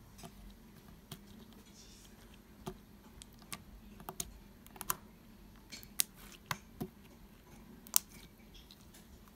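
Green glitter slime being pressed and poked with fingers on a tabletop, giving irregular sharp clicks and small pops, about a dozen of them, the loudest about six and eight seconds in.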